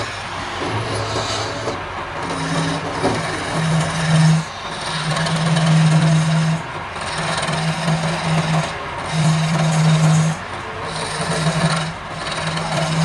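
Wood lathe turning a wooden spindle while a hand-held chisel cuts into it: a steady rasping hiss of the cut, broken by short breaks about every two seconds as the tool comes off the wood, over a low hum that comes and goes.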